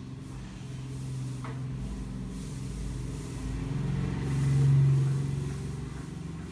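Low engine hum of a passing motor vehicle, swelling to its loudest about five seconds in and then fading.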